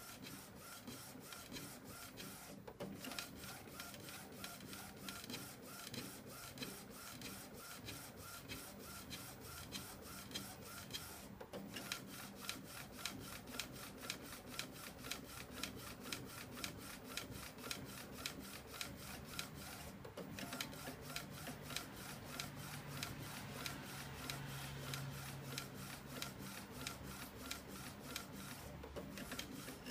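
Inkjet printer's print-head carriage shuttling back and forth while printing: a steady mechanical run with a rapid, even clicking and a low hum. It pauses briefly about every eight to nine seconds, four times.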